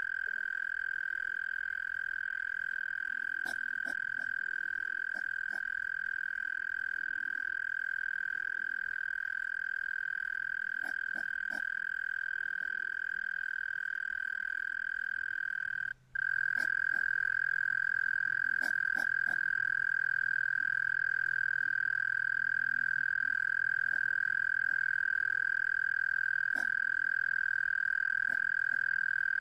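Hedgehogs making a steady, high-pitched whistling tone that holds one pitch without a break, apart from a split-second cut about halfway through. A few faint clicks sound over it.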